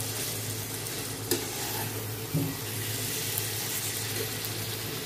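Minced meat and onions sizzling in hot oil in a steel kadhai as they are stirred with a metal ladle, which clinks against the pan twice. A steady low hum runs underneath.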